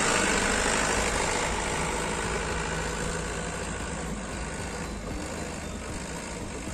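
Light cab-chassis truck's engine running as the truck drives off across dirt, growing steadily fainter as it moves away.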